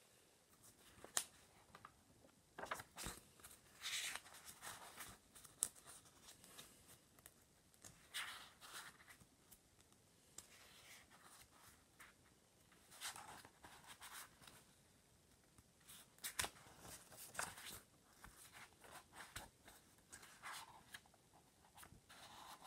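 Faint rustling and crinkling of a spiral-bound sketchbook's paper pages as they are handled and turned, coming in scattered bursts with small sharp clicks between them.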